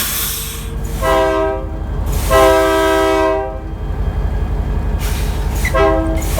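Locomotive air horn sounding a chord of several tones: a short blast about a second in, a longer blast right after it, and another short blast starting near the end.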